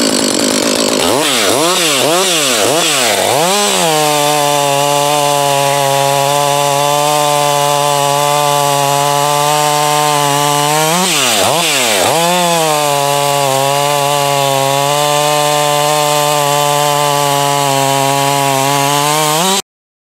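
Freshly rebuilt Husqvarna 562 XP two-stroke chainsaw, revved up and down several times, then held at full throttle while cutting through a log, its pitch steady under load. About eleven seconds in the pitch drops and rises again, then holds steady for a second long stretch at full throttle before the sound cuts off suddenly near the end.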